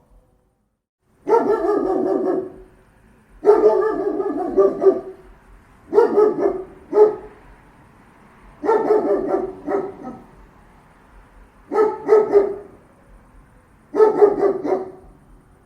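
Big German shepherd guard dog barking in bouts of several deep barks, about every two to three seconds.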